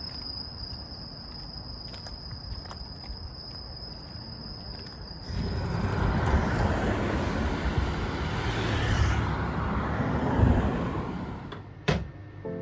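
Outdoor night ambience: a steady high insect trill over faint background noise. About five seconds in it cuts to a louder, steady rumble and hiss, and a sharp click sounds just before the end.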